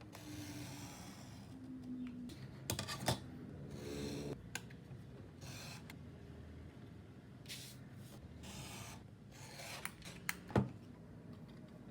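Objects being handled: intermittent rubbing and rustling, with a few sharp clicks about three seconds in and a louder knock near the end.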